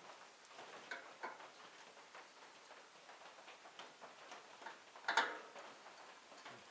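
Scattered light clicks and taps of things being handled, with one louder sharp knock about five seconds in.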